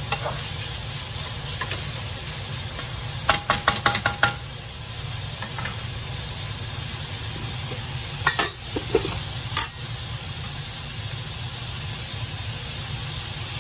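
Chopped beef with onion, garlic and chili sizzling as it fries in a nonstick pan, a steady sizzle throughout. A quick run of sharp clacks comes about three seconds in, and a few more about two-thirds of the way through.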